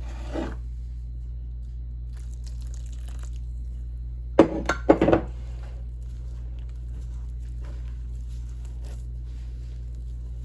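Hands working masa dough in a bowl, faint squishing and rustling, with a quick cluster of four or five sharp knocks about four and a half seconds in, over a steady low hum.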